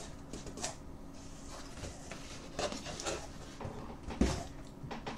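Cardboard shipping box being handled and opened: flaps and packing paper rustling in short bursts, with a dull thump about four seconds in.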